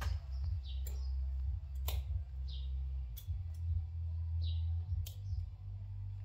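A bird calling in short falling chirps, one about every two seconds, over a steady low hum. A few sharp clicks come in between, from the grinder cord being handled.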